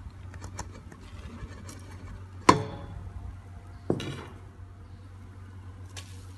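Two ringing metallic clanks about a second and a half apart, with a few lighter taps, as a bowl of flour is knocked against a stainless steel mixing bowl; a low steady hum runs underneath.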